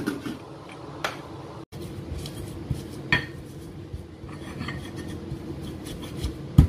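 A glass lid is set on a steel pot. Then a stone pestle grinds and pounds a spice paste of candlenuts, garlic and salt in a stone mortar (ulekan and cobek), a gritty rubbing with scattered knocks.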